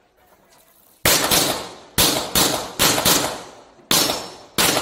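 Glock 17 9 mm pistol firing a string of about eight shots, mostly in quick pairs, each shot ringing off the concrete range walls.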